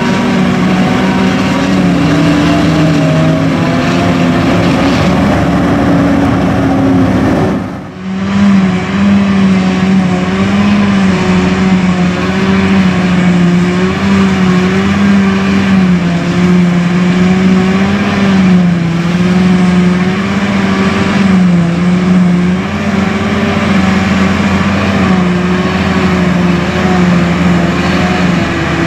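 John Deere 9900 self-propelled forage harvester, with its 956 hp engine and cutterhead running under load while chopping hay: a loud, steady drone with a humming tone that wavers slightly in pitch. The sound drops out briefly about eight seconds in, then carries on.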